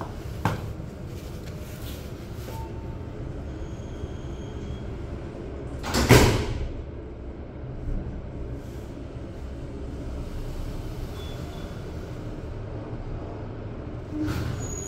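Steady low rumble with one loud, short whoosh about six seconds in that dies away within a second.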